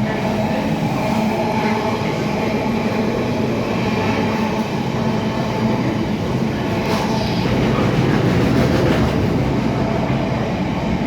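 Freight train passing along the track, a steady loud noise of wheels and wagons on the rails with some clickety-clack.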